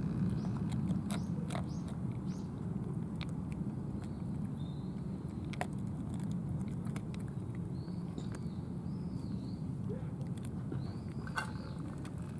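Cats chewing and biting food from plastic trays, heard as scattered small clicks over a steady low rumble. A few short high chirps come near the start and again later.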